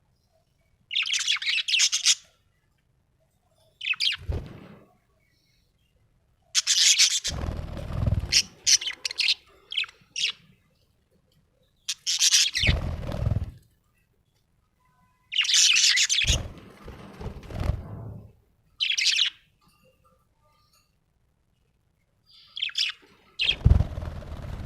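Budgerigar chirping and chattering in short bursts of one to two seconds, with near-silent pauses between them. Low thuds sound under several of the bursts.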